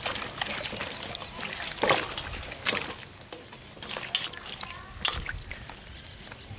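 Green beans, carrots and green chillies being washed by hand in a steel bowl of water: irregular splashing and sloshing, with water dripping as handfuls are lifted out.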